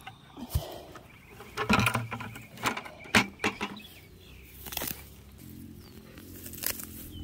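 Irregular knocks and clatters of a plastic bucket being handled, with rustling through grass and plants as a hand reaches in around a young elderberry bush. A low steady hum comes in past the middle.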